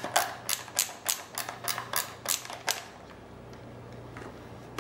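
Ratcheting screwdriver clicking as it drives the long stock bolt into a shotgun buttstock, about three sharp clicks a second, stopping a little over halfway through.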